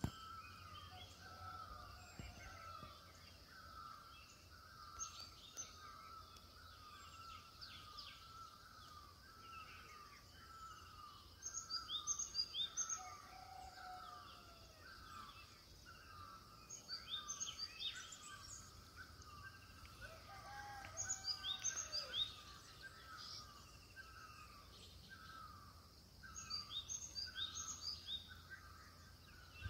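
Wild birds calling: one repeats a short note steadily, a little over once a second, while bursts of quick high chirps break in four times, with a few lower calls between.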